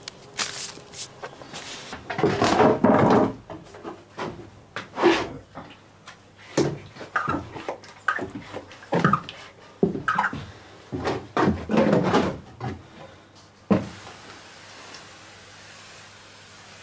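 A run of irregular knocks, clacks and short scrapes from tools and buckets being handled. The run stops with a last sharp knock about fourteen seconds in, and a faint steady hiss follows.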